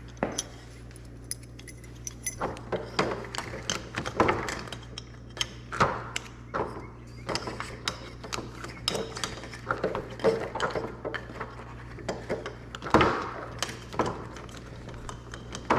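Small metallic clicks, clinks and light knocks from keys and lock parts being handled during a lock rekey, irregular throughout, over a steady low hum.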